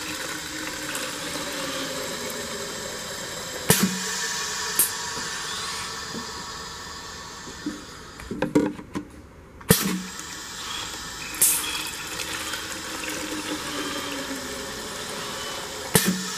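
A stream of liquid from a 500 ml piston filler's fill nozzle pours into a clear jar with a steady splashing fill. There are sharp clicks and short hisses from the machine. About halfway through, a brief lull holds knocks as the jar is swapped, and then a second fill starts.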